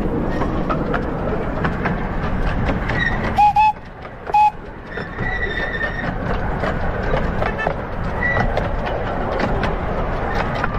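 Miniature steam locomotive running along the track, with a steady rattle and sharp clicks of the wheels over the rail joints. A couple of short, loud whistle toots come a little after three seconds in, then one more about a second later.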